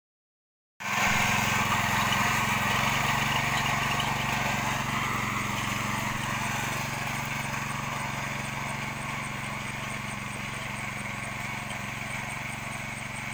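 Small engine of a walk-behind single-wheel plough running steadily as it tills the soil. It starts abruptly about a second in and grows gradually fainter as the plough moves away.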